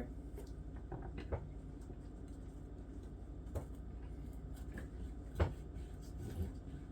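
A few scattered knocks of a kitchen knife cutting the ends off carrots onto a cutting board, the loudest about five seconds in, over a low steady hum.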